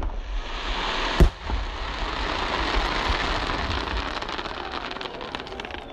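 Aerial fireworks shells bursting close by: a loud bang about a second in, followed by several seconds of dense crackling from crackling stars that thins out into a few last separate pops near the end.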